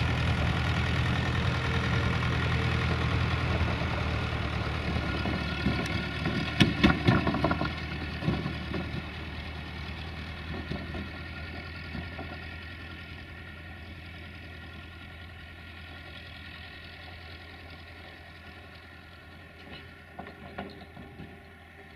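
UTB 445 tractor's diesel engine running steadily while it tows a two-wheeled trailer, fading as it moves away. About seven seconds in comes a cluster of sharp clattering knocks, the trailer rattling as it crosses the rails, with a few fainter knocks near the end.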